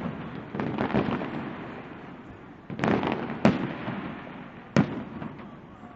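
Aerial fireworks going off: a burst of crackling about a second in, then three sharp bangs about a second apart, each trailing off.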